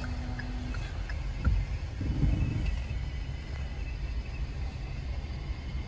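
Hyundai i20 on the move: a steady low rumble of road and engine noise, with a couple of short bumps about two seconds in.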